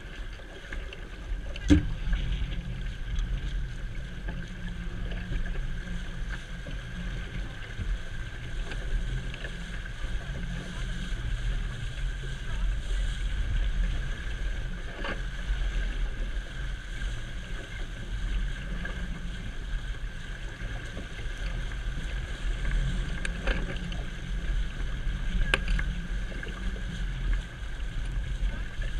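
Wind buffeting the microphone over the rush of water along the stern and wake of a trailer sailer under sail, with a sharp knock about two seconds in and a few fainter knocks later.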